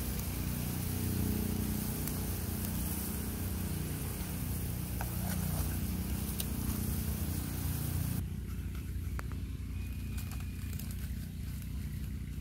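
Kho quẹt (fish sauce, sugar and oil) bubbling and sizzling in an aluminium wok over a wood fire, an even hiss over a low rumble. About eight seconds in, it cuts to a quieter background with scattered sharp clicks and crackles.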